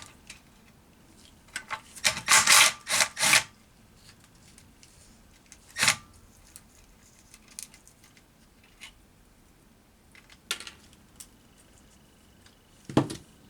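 Hand ratchet wrench clicking in quick runs while backing out the detent bolts on a gearbox case, followed by a few single metallic clicks and taps.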